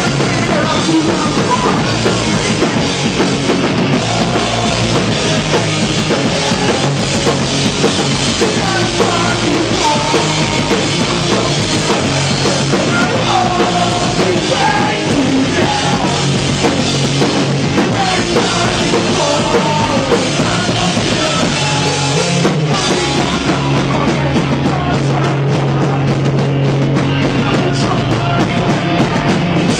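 Pop-punk band playing live at a steady, loud level, with a drum kit and electric guitars.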